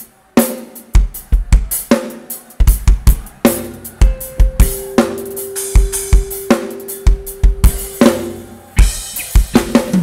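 Live rock band's drum kit playing on its own as a lead-in to the next song: kick, snare and cymbal hits at a quick, uneven pace, with a held note from another instrument sounding for a few seconds in the middle.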